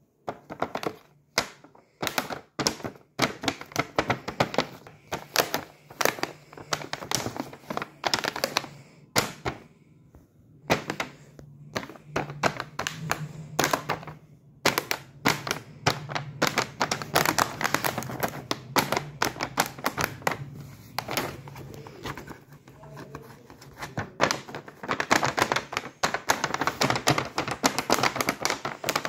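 Fingers handling and tapping the clear plastic window of a doll's box: rapid, irregular clicks and crackles of the plastic, with a low steady hum through the middle stretch.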